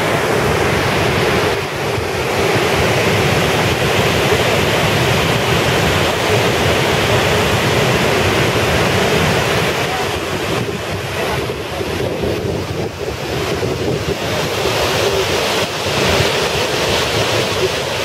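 Steady rush of water from the Agua Azul waterfalls, mixed with wind buffeting the microphone.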